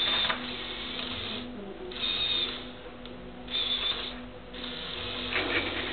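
Small electric motors and plastic gearing of a LEGO Technic excavator whirring in several start-stop bursts as its boom and bucket are worked.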